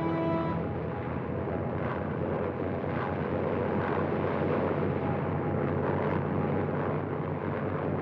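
Steady drone of a propeller-driven plane's piston engine running, with a continuous low hum under a rushing noise.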